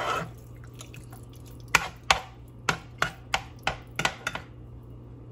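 Spoon stirring a thick ground-pork mixture in a small saucepan, knocking against the pan about nine times in quick succession, over a low steady hum.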